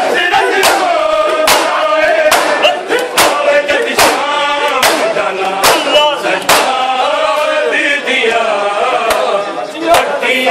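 Male voices chanting a noha in Punjabi, a lead reciter with a group responding, over a steady beat of matam: open-handed chest-beating slaps about one every 0.8 seconds.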